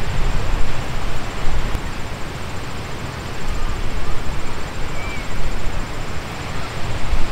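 Wind blowing on the microphone: a loud, uneven rush of noise with a heavy low rumble that rises and falls in gusts.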